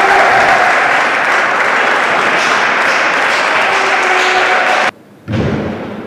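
Spectators applauding after a table tennis rally, with a few voices calling out. The applause cuts off abruptly about five seconds in and is followed by a short thud.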